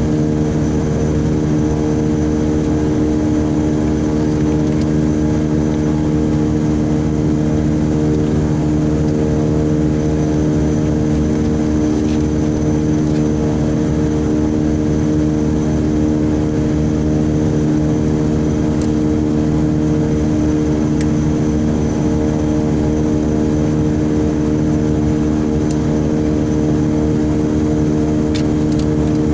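Twin Pratt & Whitney PT6A turboprop engines of a Beechcraft King Air 90 running steadily at idle, heard inside the cockpit as a loud, even propeller drone with a faint high turbine whine.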